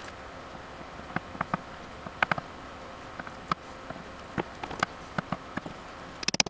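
Light clicks and knocks of hands and tools being handled on a wooden workbench, scattered a second or so apart, then a quick run of sharp taps near the end.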